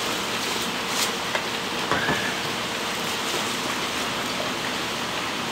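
A steady rushing hiss, like rain or running water, with a few light clicks and a faint steady hum.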